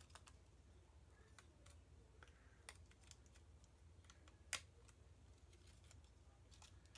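Near silence with a few faint, scattered clicks from adhesive rhinestone gem stickers and their clear plastic backing sheet being handled and peeled; the sharpest click comes about four and a half seconds in.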